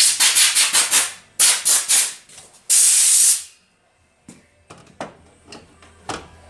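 Two quick runs of rubbing strokes, about seven a second, then a hiss lasting under a second, followed by a few light clicks and taps.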